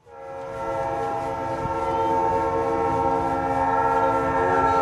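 Norfolk Southern diesel locomotive's air horn sounding one long, steady chord of several notes over a low rumble, fading in at the start.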